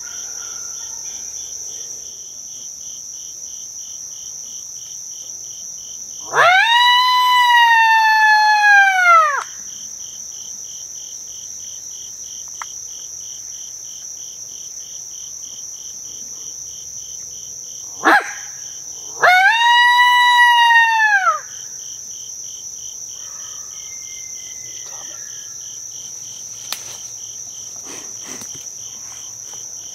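Two long coyote howls blown on a mouth diaphragm call, each rising quickly, holding, then falling away, with a short rising note just before the second. The howls are meant to call a coyote in. Crickets and other insects trill steadily underneath.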